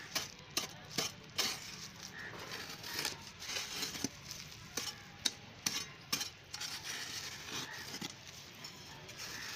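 Short-handled hand hoe chopping into the earth and scraping soil out of a hole: irregular sharp strikes, about one or two a second, with gritty scraping between them.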